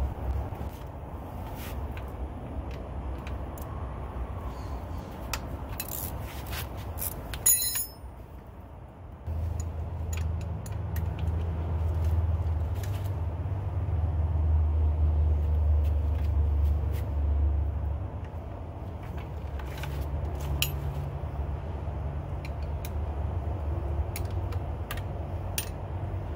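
Metal wrench clinking and scraping on the lower-unit bolts of an outboard motor as they are loosened: scattered sharp clicks, a quick cluster of them partway through, over a steady low rumble.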